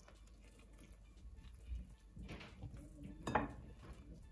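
Silicone spatula scraping and knocking against a glass mixing bowl while stirring flour and water into a dough, with a sharper knock a little after three seconds in.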